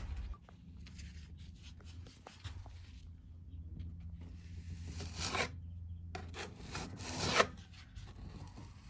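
Metal putty knife scraping and spreading plastic wood filler over a painted wooden trailer floor, in a few strokes, the loudest about seven seconds in.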